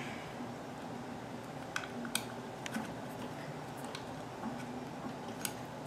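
A few sharp, irregular clicks and taps from hands adjusting the stitch-width setting of a Greist zigzag attachment on a sewing machine, over a steady low hiss.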